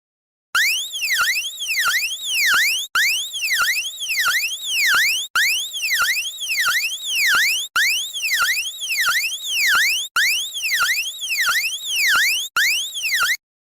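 Electronic emergency-alert siren tone, warbling up and down in pitch several times a second. It comes in six identical bursts about two and a half seconds apart, each with quick sweeps ending in one longer sweep, and cuts off abruptly near the end.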